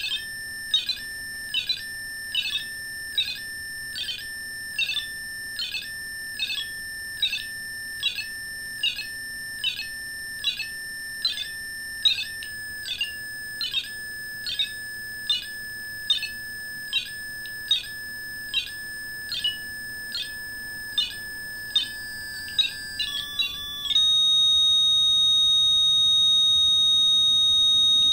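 REM pod ghost-hunting proximity alarm going off: a steady electronic tone broken by repeated warbling beeps a little more than once a second, its pitch shifting now and then. About 24 seconds in it changes to one louder continuous high tone. The sound shows the device's antenna field being disturbed.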